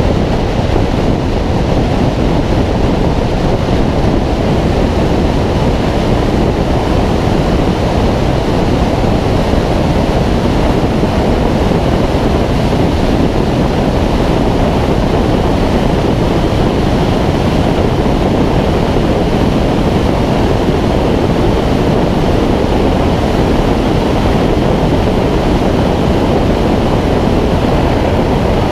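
Steady, loud rush of wind over a wing-mounted camera on a Schweizer 2-33 glider, from the airflow as the glider rolls along the grass and climbs away on takeoff.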